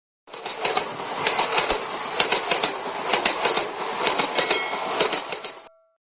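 Train running along the track, its wheels clicking over the rail joints in a steady clickety-clack; it cuts in after a brief silence and fades out near the end.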